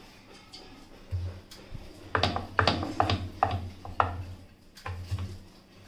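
Rolling pin rolling out a thin sheet of flour dough on a board: a rhythmic run of low knocks and rubbing strokes, about two a second, starting about a second in.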